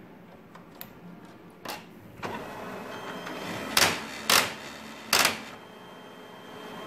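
HP LaserJet P3005 laser printer mechanism running, with a few light clicks and then three loud, short clacks about half a second to a second apart.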